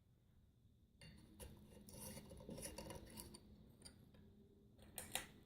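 Faint clinks and scraping of a glass light bulb being fitted into a ceiling fan's light-kit socket under its glass globe. A few sharper clicks come near the end.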